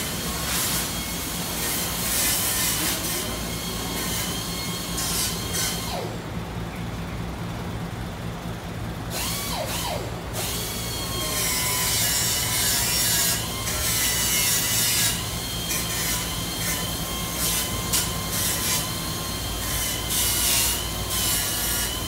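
Steady low machine hum, like an engine running, under a hiss of background noise. The hiss drops away for about three seconds near the middle.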